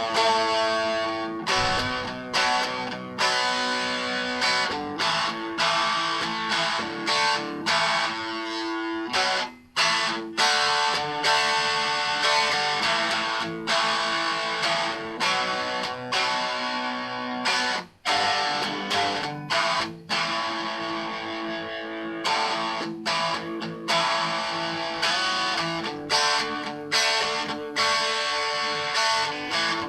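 Instrumental guitar music: plucked and strummed guitar notes in a steady pulse, breaking off for a moment twice, at about nine and a half seconds and at about eighteen seconds.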